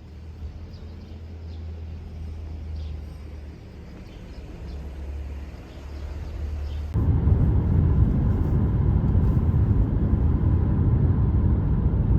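Steady low rumble of a car on the road; it jumps suddenly louder about seven seconds in.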